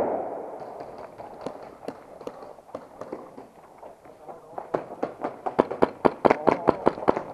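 Footsteps of someone running hard over a gritty concrete floor, a quick train of sharp steps about five a second starting about four and a half seconds in, after a few scattered steps. At the start the echo of a loud bang fades away.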